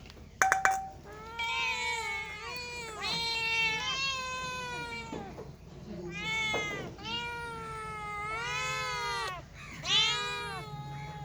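A cat meowing over and over: a string of long, drawn-out meows whose pitch rises and falls within each call. A sharp knock sounds just before the meowing starts.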